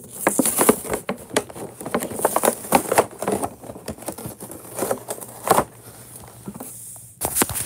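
A clear plastic and cardboard toy-truck box being opened and handled: rapid crinkling and crackling with many small clicks, and a louder cluster of clicks near the end.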